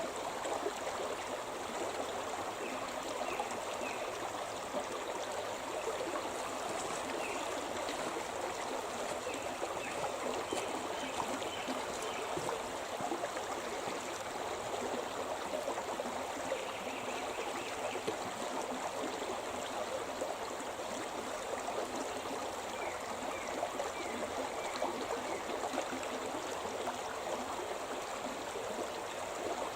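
Shimna River, a mountain river, flowing over rocks with a steady rush of water.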